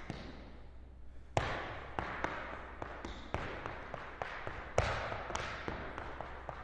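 Irish dance hard shoes striking a hard floor in irregular taps and stamps, each ringing on with a roomy echo; two heavier strikes stand out, about a second and a half in and about five seconds in.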